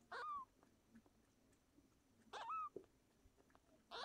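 Young kitten mewing: two short, high mews about two seconds apart, each bending up and down in pitch, and a third beginning right at the end.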